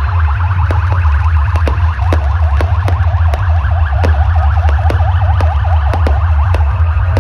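Fireworks display going off in a string of sharp bangs, with a fast rising-and-falling siren-like warble, over loud pulsing bass music.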